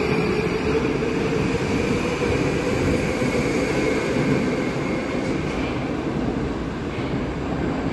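Moscow Metro train running through a station: a steady rumble of wheels on rail with the whine of its electric traction motors, rising slightly and then holding level.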